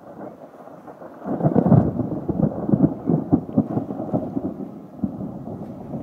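Thunder rumbling, swelling loudly about a second in and rolling on with rapid crackling peaks, easing a little around five seconds before building again.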